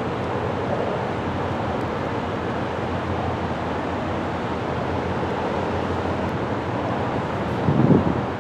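Steady rushing wind noise on the microphone with a low rumble beneath it, and a stronger gust near the end.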